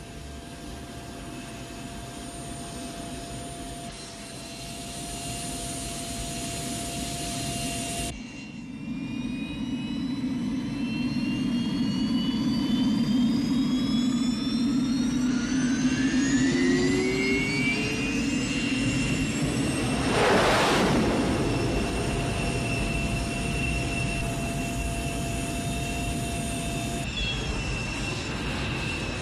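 F-104 Starfighter jet engine on a takeoff run. A steady whine over a rumble, then a whine that rises steadily in pitch for several seconds and builds to a loud rush about two-thirds of the way through, as the jet passes. It then settles to a steady whine.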